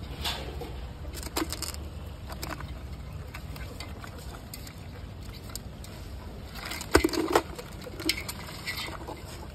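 Live crabs being handled in a tub: scattered clicks and scrapes of shells and legs knocking together, with the loudest clatter about seven seconds in, over a low steady rumble.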